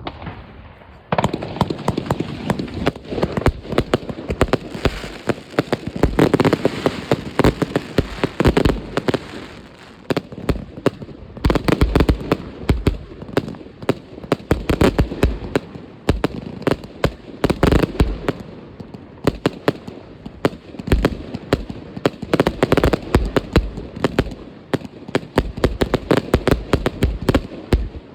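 Fireworks going off in a dense, continuous barrage of bangs and crackles, several reports a second, starting suddenly about a second in.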